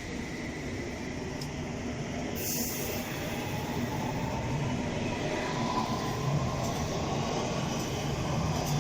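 London Underground train's traction motors whining as it pulls away, the whine rising slowly in pitch and the running growing gradually louder over a steady rumble. A short hiss comes about two and a half seconds in.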